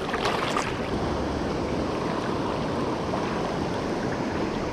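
Steady rushing of shallow river current flowing around the wading angler's legs, mixed with wind on the microphone. A few faint clicks sound in the first half second.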